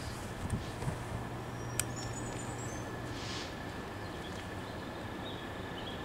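Faint drone of distant approaching Class 66 diesel locomotives under a steady outdoor noise haze, with a few short bird chirps about two seconds in and a couple of low thumps in the first second.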